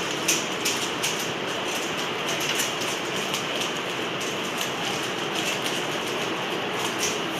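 Rubik's cube being turned rapidly in the hands: a dense, continuous run of small plastic clicks and clacks as the layers snap round.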